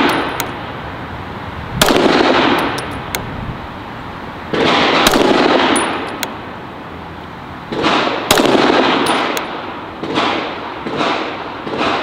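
Several single 9mm pistol shots fired at slow, deliberate intervals of a few seconds, each sharp crack trailing about a second of echo: aimed fire to check a red dot's zero.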